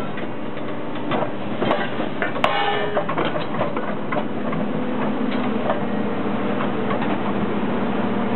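Excavator-mounted Hydraram HRC-20R rail cropper working scrap steel rail: sharp metallic clanks and ringing as cut rail sections strike each other, loudest in the first three seconds, over the steady running of the excavator's engine and hydraulics.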